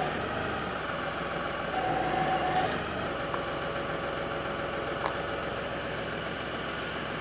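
LS compact tractor's diesel engine idling steadily, with a whine that comes and goes over it as the rear-remote hydraulic lever is worked to move the new hydraulic top link cylinder. A couple of light clicks near the middle.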